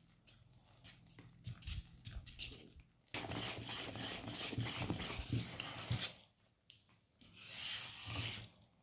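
Wire balloon whisk beating thick frangipane batter in a bowl, its wires scraping through the paste. Soft separate strokes for the first three seconds, then fast, louder whisking for about three seconds, a short pause, and another quick burst near the end.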